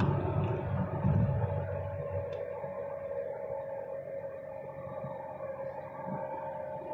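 Inside a car cruising at highway speed: a steady humming tone held over low road rumble, which eases off about two seconds in.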